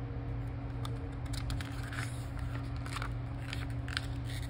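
Paper pages of a thin picture book being handled and turned: a few short, soft rustles and flicks, over a steady low hum.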